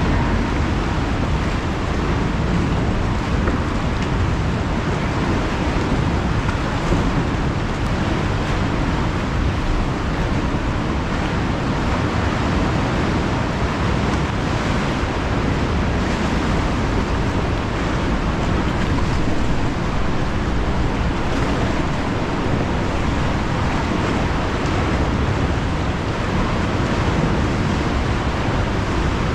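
Sea waves surging and washing inside a sea cave: a steady, deep wash of water with no break.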